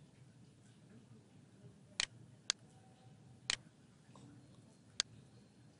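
Four sharp, separate clicks of a computer mouse button, spaced unevenly over a few seconds, with faint room hiss between them.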